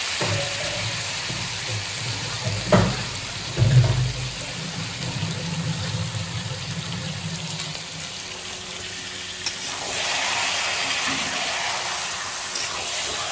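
Raw chicken pieces sizzling in hot oil and masala paste in a steel wok, with two short thumps about three and four seconds in. Near the end a spatula stirs the chicken through the pan and the sizzle gets louder.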